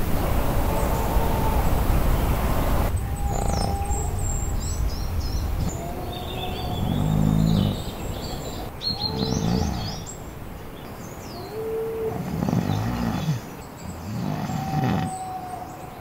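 Four low, drawn-out calls from an unidentified animal, each about a second long, with birds chirping around them. A steady hiss of noise fills the first three seconds and then cuts off.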